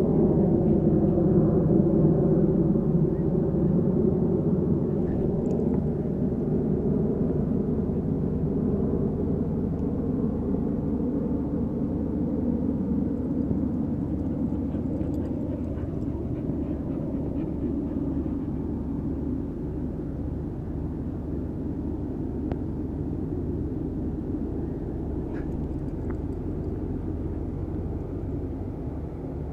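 A distant engine droning with a steady chord of low tones over a rumble, slowly fading away.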